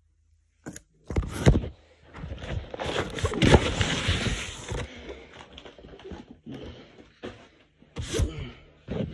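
Cardboard box being handled and opened: knocks about a second in, a long stretch of scraping and rustling in the middle, and more knocks near the end.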